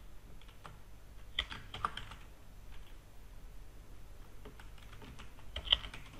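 Typing on a computer keyboard: slow, irregular keystrokes, with short bunches of quick key presses about a second and a half in and again near the end.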